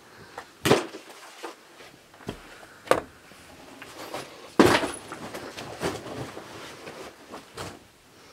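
A series of sharp knocks against a door, about six in all, the loudest about four and a half seconds in, with softer rustling after it as a jacket is handled on the door hooks.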